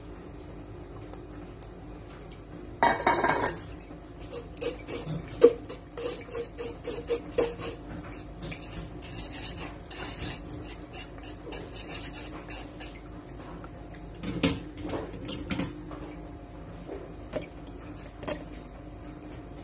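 Cooking utensils clinking and scraping against a metal mesh strainer as boiled squash is worked through it, first with chopsticks, then pressed with a metal fork. A louder clatter comes about three seconds in, and another run of scrapes and taps about two-thirds of the way through.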